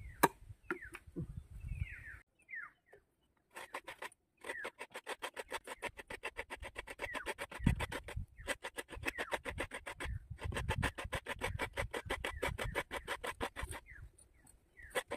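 Coconut half scraped against a hand coconut grater in fast, even strokes, several a second, pausing twice. A bird chirps a few times near the start.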